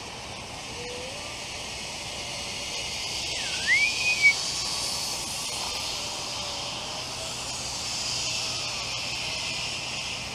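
A steady high hiss that swells twice, with a short whistle about three and a half seconds in that dips, then rises and holds.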